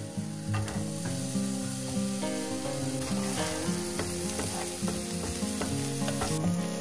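Food sizzling as it fries in a pan, with a few light clicks, over soft guitar background music.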